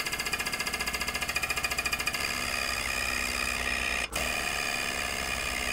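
Air-over-hydraulic pump of a Black Widow 20-ton shop press running on compressed air, fed through a pneumatic foot pedal valve, as the ram extends. It makes a rapid, even pulsing chatter that stops for a moment about four seconds in, then runs again.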